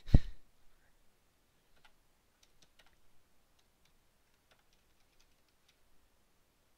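A single loud, low thump right at the start, then faint, irregular computer-keyboard keystrokes as a command is typed.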